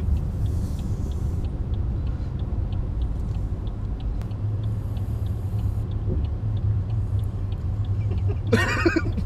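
BMW 740d's V8 turbodiesel running steadily at low speed, heard from inside the cabin as a low rumble, with a light regular ticking about two to three times a second.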